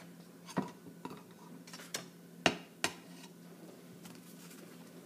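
Sharp clicks and knocks of a utensil against a plastic cup of egg dye and the egg in it, about five in the first three seconds, the loudest about two and a half seconds in, as an egg is dipped and handled in the dye. A faint steady low hum runs underneath.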